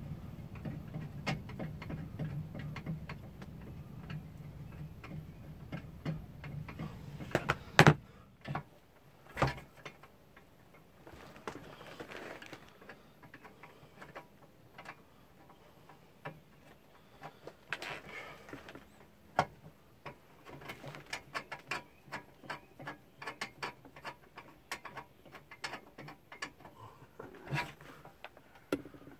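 Ratchet wrench with a deep socket clicking in short runs as a long-threaded bolt holding a camper's ceiling air-conditioner unit is backed out. A low hum sits under the first several seconds, and a few louder knocks come about eight and nine seconds in.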